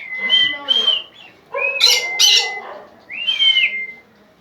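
A pet bird gives about four clear whistled calls, each rising and then holding a level note. Two short harsh squawks come about two seconds in.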